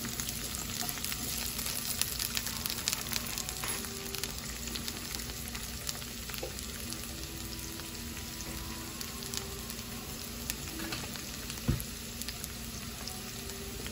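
Sliced bell peppers sizzling steadily in hot oil in a skillet, with a fork stirring them and clicking against the pan at first. A single short knock about twelve seconds in.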